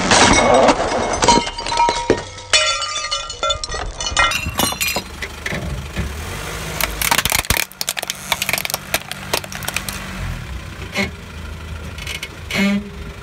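Red stemmed wine glasses cracking and snapping under a car tyre, then clinking and rattling among scattered candies. After that come scattered cracks and creaks as the tyre presses on a plastic toy car, over a car's engine running low.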